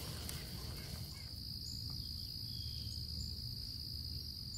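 Steady, high-pitched insect chorus from crickets or similar insects. Over the first second or so it is joined by the faint sizzle of a pork chop heating in a steel fry pan.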